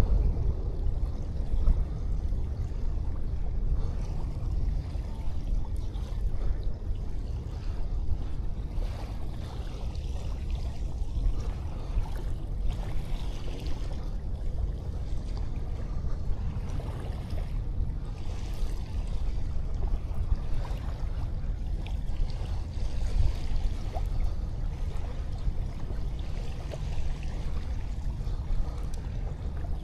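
Small sea waves washing up on the shore, swelling in hiss every few seconds over a steady low rumble.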